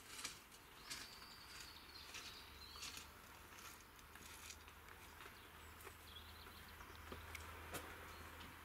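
Near silence: faint outdoor ambience with a few faint, short bird chirps and small scattered clicks.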